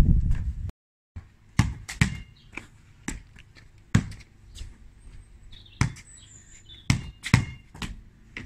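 Basketball bouncing on concrete paving slabs, mixed with a player's footsteps during a dribbling footwork drill: about eight sharp, irregular knocks, some close together.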